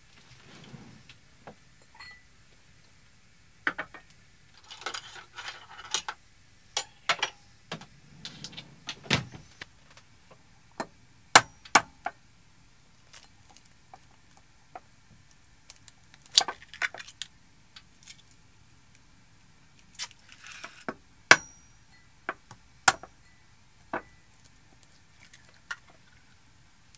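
Egg being cracked by hand: a string of sharp taps of the eggshell against a small ceramic bowl and against fingers, with brief crackling of broken shell.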